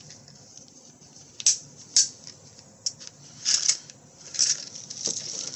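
Handling noise from a thin sheet-metal saw edge guide being fitted on its plastic bag: two sharp clicks about half a second apart, then several short bursts of plastic crinkling.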